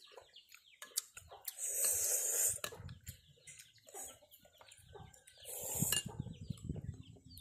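Chickens clucking, with many short falling calls, and two louder noisy bursts about two seconds in and again near six seconds.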